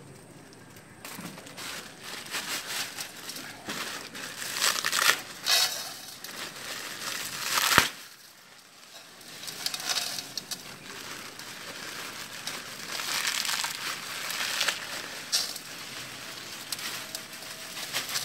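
Plastic vermicelli packets crinkling as they are opened, and bundles of dry vermicelli crackling and snapping as they are broken into short pieces over a steel tray, in irregular bursts with one sharp loud crack about eight seconds in.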